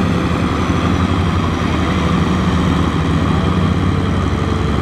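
Kubota M6040SU tractor's four-cylinder diesel engine running steadily under load, at an even pitch, as it hauls a loaded rice trailer while nearly stuck in mud.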